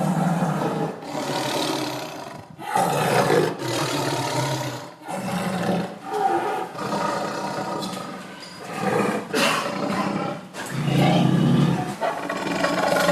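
A tiger roaring over and over, a run of loud roars each a second or two long with brief breaks between them.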